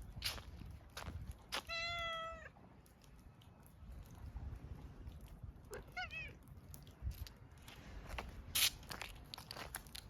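Tortoiseshell cat meowing twice: a longer, steady meow about two seconds in, then a short meow that rises and falls around six seconds in. Scattered clicks and taps sound in between.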